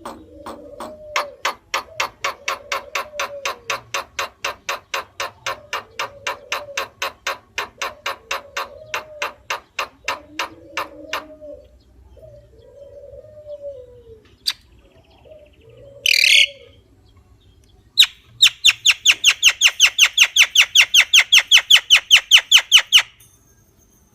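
Javan myna (jalak kebo) calling. Long runs of rapid dry clicks, about four a second, come over low arched notes. After a pause there is a single harsh squawk, then a louder, faster burst of clicks near the end.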